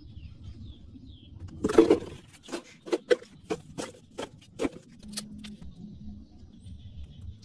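Plastic candy jar handled: a rustle about two seconds in, then a quick string of sharp clicks, about four a second, as hard candies knock against the plastic.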